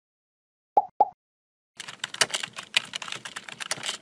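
Computer keyboard typing sound effect: a quick run of keystrokes lasting about two seconds, as text is typed into an on-screen search bar. It is preceded about a second in by two short pitched blips.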